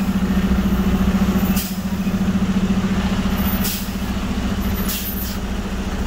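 Heavy crane truck's diesel engine running with a steady low drone, with four short hisses of air from its air system.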